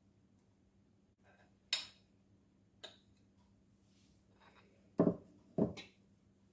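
A fork clinking against a plate and the Thermomix's steel mixing bowl as grated cheese is scraped in: a few light separate clinks. Then two louder knocks of dishes being set down, about five seconds in.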